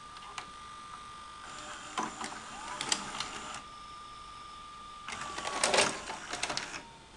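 VHS video player's tape mechanism running with its cover off: a steady high motor whine that slides lower in pitch over the last couple of seconds, with two spells of clicking and clatter from the gears and tape guides.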